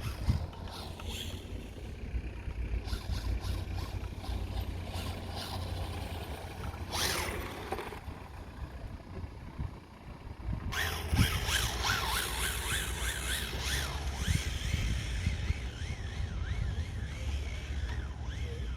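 Rebuilt radio-controlled rally car being driven, its motor whining and revving up and down in quick rises and falls over the second half, with a brief pass-by sound about seven seconds in and a steady low rumble underneath.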